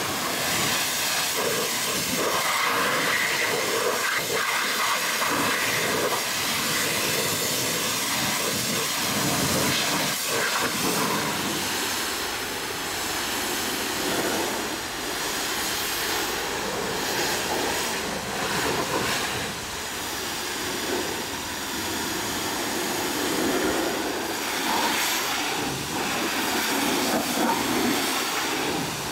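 Pressure-washer lance spraying a jet of water onto a truck cab: a steady hiss with water spattering on the panels and grille, swelling and easing a little as the jet moves.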